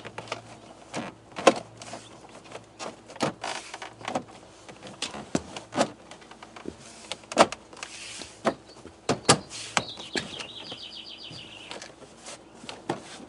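Plastic door trim panel being pressed onto a truck door, its push-in retainer clips snapping home with a series of sharp clicks and knocks. A brief high twittering sound comes about ten seconds in.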